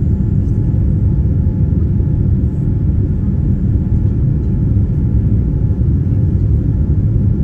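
Steady, loud low rumble of a Boeing 787's engines and airflow heard from inside the cabin during the climb after takeoff, with a few faint steady tones above the rumble.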